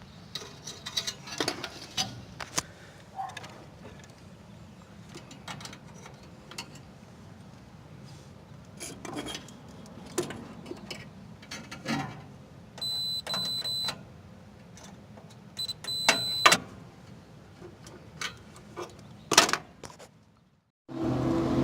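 Multimeter continuity beeper sounding twice, a steady high beep of about a second and then a shorter one, as the probes touch the furnace rollout switch's terminals; the beep signals that the switch is closed. Scattered clicks and taps of the probes and handling are heard throughout.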